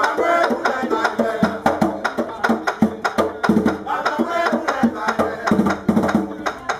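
Danmyé music: a bèlè hand drum, played with the drummer seated astride it, beats out a quick, uneven rhythm of sharp strokes under a singer's voice.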